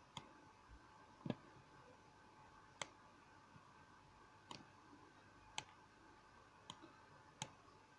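Faint computer mouse clicks, about seven single clicks at irregular intervals of one to two seconds.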